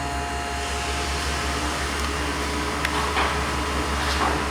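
Elevator machine room equipment humming steadily: a low rumble under several steady tones, with a single faint click about three seconds in.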